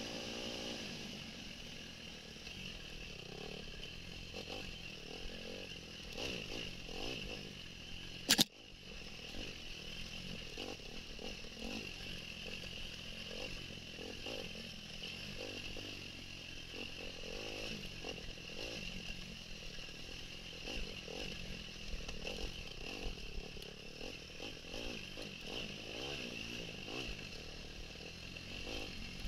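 Off-road dirt bike engine running while riding a rough dirt trail, its level rising and falling. A single sharp click about eight seconds in is the loudest moment.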